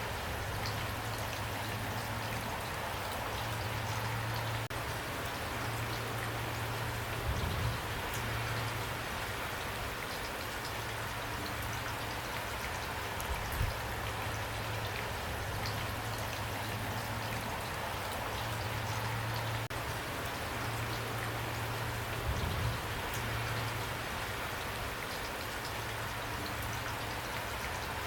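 Steady rain falling in a dense, even patter, with a few louder low thuds standing out now and then.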